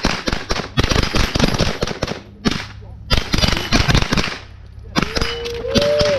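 Rapid rifle fire: quick runs of shots in several bursts with short pauses between them, and a ringing tone near the end.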